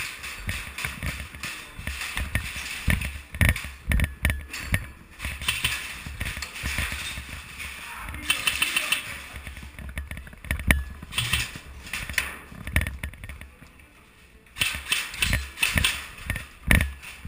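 Irregular knocks, thumps and rubbing on a body-worn GoPro as its wearer moves around, with a muffled voice at times.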